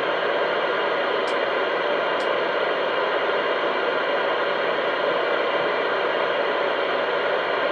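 CB radio speaker giving a steady hiss of static, with no voice on the channel; the hiss cuts off just after the end.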